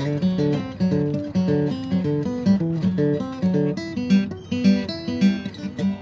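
Steel-string acoustic guitar strummed in a steady rhythm, chords struck about twice a second.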